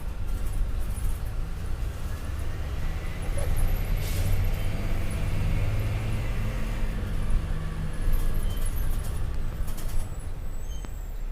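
MAN D0836 six-cylinder diesel engine of a Volkswagen Volksbus 17.260 ODS bus chassis running, its low note swelling somewhat in the middle. A brief air hiss comes about four seconds in.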